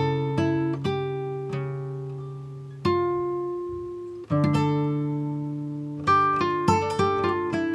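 Background music on a plucked acoustic guitar: single notes ringing out and fading, two longer held chords in the middle, then quicker picking near the end.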